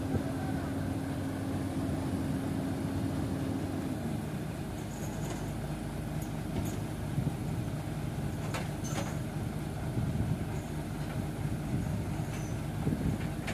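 Heavy diesel engine running steadily as a Komatsu PC200 excavator crawls up onto a truck's loading deck. The engine note drops lower about four seconds in, and there are a few light metallic clinks.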